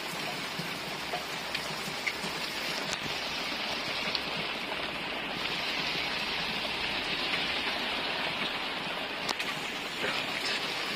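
Rain falling steadily and relentlessly, an even hiss of a downpour with a few faint ticks of individual drops.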